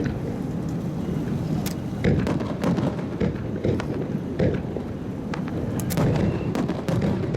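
Aerial fireworks bursting in a steady series, low booms mixed with sharp cracking reports coming about every half second to a second.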